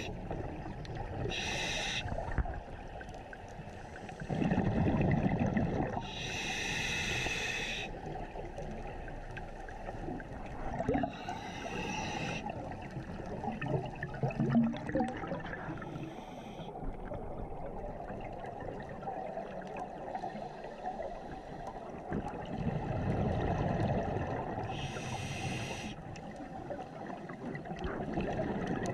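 Scuba diver breathing through a regulator underwater: several hissing inhalations, each about a second long, alternating with the low bubbling rumble of exhaled air escaping.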